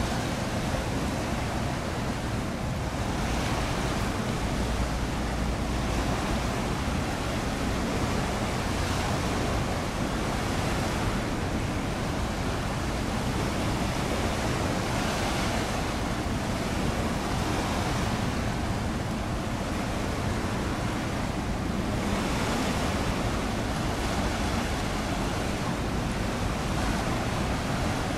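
Steady rush of sea water and wind, with wind buffeting the microphone; the wash swells softly every few seconds.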